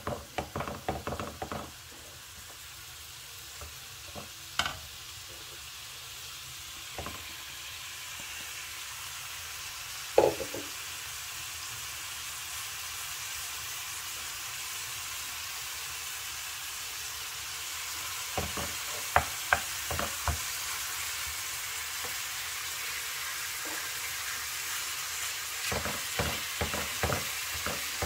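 Minced beef sizzling in olive oil in a nonstick frying pan, the sizzle growing steadily louder. A wooden spatula scrapes and taps against the pan a few times: near the start, about ten seconds in, and again in the last third.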